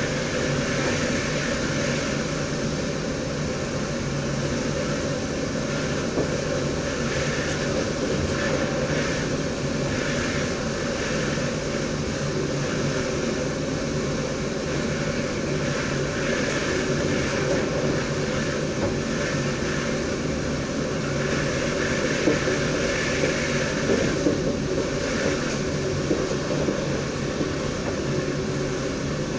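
NS DDZ double-deck electric train running along the line, heard from inside the driver's cab: a steady rolling and wheel-on-rail noise with a few light knocks.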